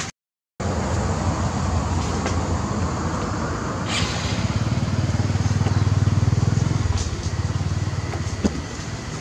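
Small motorbike engine running, a rapid low pulsing that grows louder to a peak and drops away sharply about seven seconds in.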